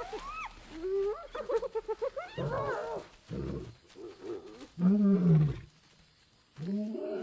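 Spotted hyenas whooping and cackling, with rising calls and rapid giggling pulses, then a male lion roaring in three deep calls over the second half, the middle one loudest. The roar is a lion defending its kill from the scavengers.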